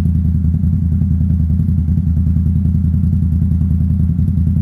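ATV engine running steadily at idle, a low, even rumble with fast regular pulses.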